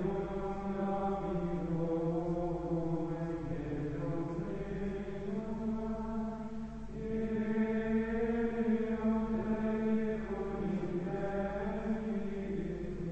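Carthusian plainchant: unaccompanied male voices singing in slow, long-held notes that step gently up and down, rising a little higher from about the middle of the stretch.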